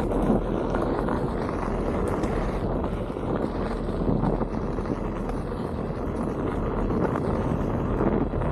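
Steady rushing noise of wind over the microphone and the tyre rumbling on a dirt trail while riding a Onewheel GT fast.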